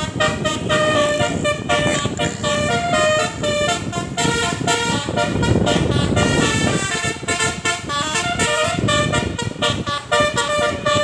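Bus telolet basuri multi-tone air horn playing a tune of short notes that change pitch quickly, with a rush of noise underneath around the middle.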